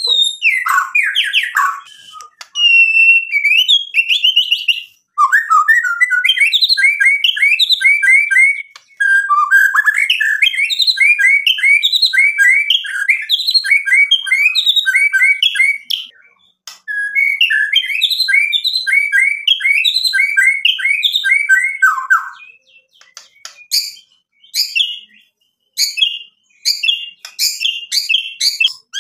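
White-rumped shama singing: long, rapid runs of varied whistled notes in repeated bursts of several seconds, with a string of sharp clicking notes near the end.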